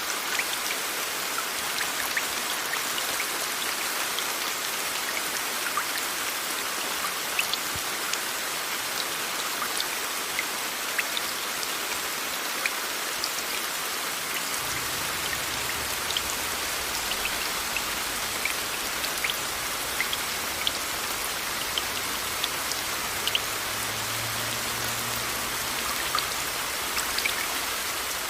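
Steady rain sound mixed with a constant white-noise hiss, with many small drop ticks scattered through it. A faint low rumble joins about halfway through.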